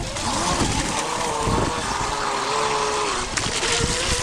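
Motor of a radio-controlled model racing boat running on the water, a steady high-pitched whine that dips slightly in pitch in the middle, over wind and water noise.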